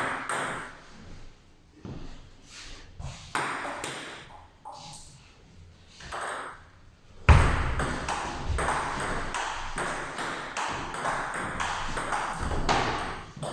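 Table tennis ball clicking off the bats and bouncing on the table. A few scattered taps come first, then a fast rally starts with a loud hit about seven seconds in and runs until just before the end.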